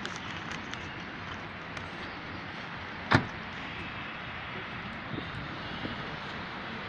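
DC Avanti sports car moving slowly past at low speed, its running gear a steady low noise, with one sharp knock about three seconds in.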